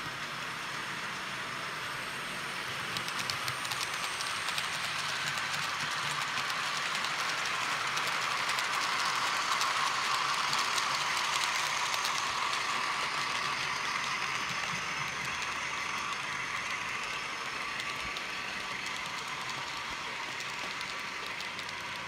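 HO-scale model goods train hauled by a model SAR 930 class diesel rolling past on the layout's track, its wheels clicking over rail joints. It grows louder toward the middle and then fades as the train moves on.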